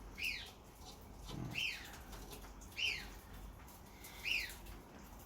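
A bird calling: a short, falling chirp repeated four times, about one every second and a half.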